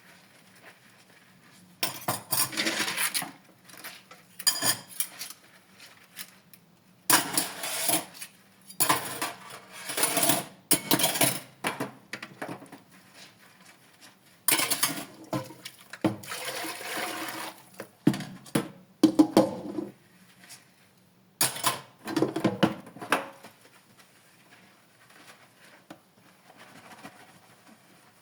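Dishes and cutlery clattering and clinking in a series of intermittent bursts as they are washed by hand, with short gaps between; it goes quieter over the last few seconds.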